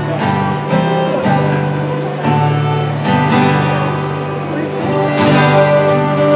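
Fiddle ensemble playing a tune together, with plucked-string accompaniment.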